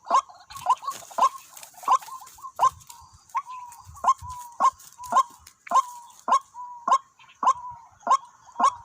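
White-breasted waterhen calling: a steady series of harsh, clipped 'kwak' notes, about three every two seconds.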